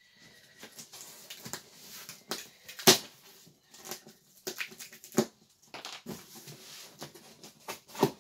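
Stapled-shut cardboard box being pulled and torn open by hand: a run of sharp cardboard rips and cracks, the loudest about three seconds in, with crackling and rustling between.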